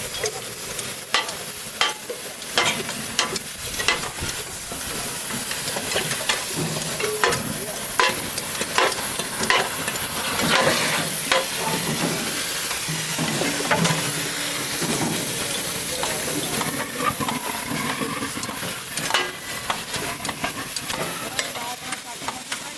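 Metal clanking and scraping as the cut steel shell of a large compressor is pried open and its inner parts are pulled out. Frequent sharp knocks run over a steady hiss.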